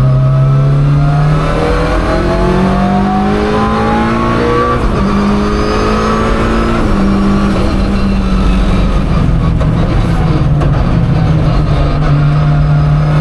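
Tarmac-rally Mitsubishi Lancer Evolution IX's turbocharged four-cylinder engine under hard acceleration. The pitch climbs and drops back at upshifts about a second in, near five seconds and near seven seconds, then holds fairly steady.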